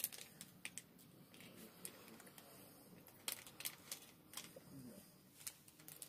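Faint, scattered clicks and mouth sounds of people sucking on hard candy canes, a sharp tick every second or so.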